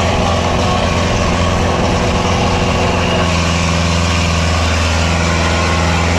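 HMT 6522 tractor's diesel engine running steadily under heavy load as it pulls a loaded trolley.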